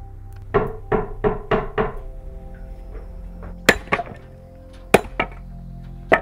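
Axe striking wood in a string of sharp blows: five quick ones in the first two seconds, then several more spaced out. Background music with steady held tones plays underneath.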